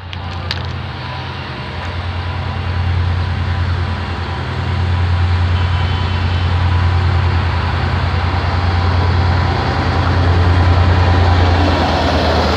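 ADtranz diesel locomotive pulling a passenger train away from the station at low speed, its diesel engine a deep steady drone that grows louder as it draws alongside.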